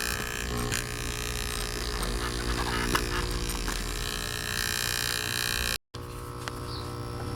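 Electric air-mattress inflator (a small air compressor) running steadily with a rough motor hum, working again after repair. The sound cuts out for a split second about six seconds in and carries on.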